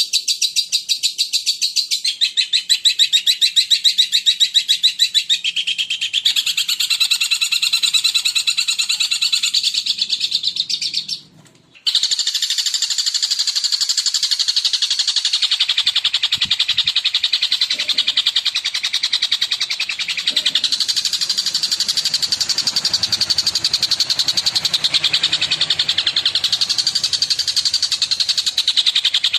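Long-tailed shrike (cendet) singing a fast, unbroken chatter of rapidly repeated high notes. The song breaks off for about half a second near the middle and resumes.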